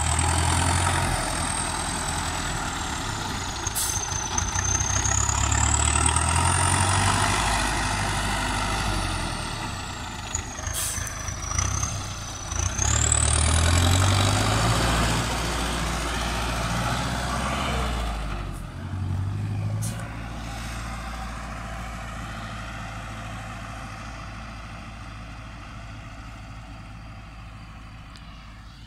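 MTZ 820.4 tractor's turbocharged diesel engine revving up and down as the tractor manoeuvres, with a high whine rising and falling along with the engine speed. After about two-thirds of the way through, it settles to a lower, steady running sound that fades as the tractor drives away.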